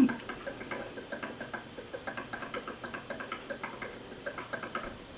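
Black ink bottle draining into an Epson EcoTank ET-2720's filling port: a run of small, irregular ticks, several a second, as air bubbles up into the upturned bottle.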